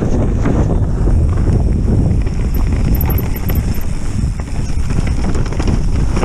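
Mountain bike riding fast over a frozen, muddy trail, heard through an action camera: steady wind on the microphone and tyre rumble, with constant quick rattling and knocks from the loose camera and bike over the bumps.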